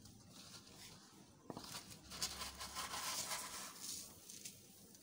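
Faint rustling hiss of dry rice grains being scooped and handled, with a few light clicks; it swells about a second and a half in and fades a little before the end.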